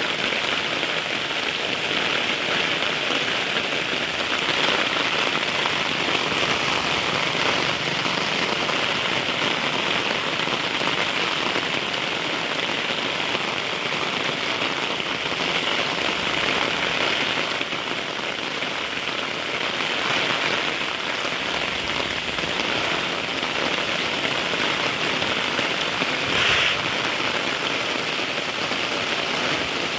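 Heavy rain falling steadily, a dense even hiss of drops on surfaces, with a brief louder moment near the end.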